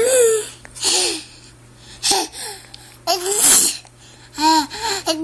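A baby fake sneezing: several short, breathy voiced bursts, mixed with baby babbling and giggles.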